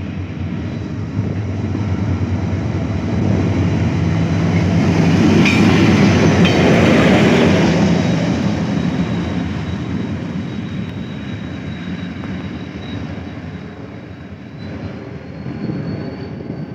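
Diesel locomotive running light past the listener: its engine drone grows as it approaches, is loudest as it passes about six to seven seconds in, with two sharp wheel clacks over the rail joints, then fades as it moves away.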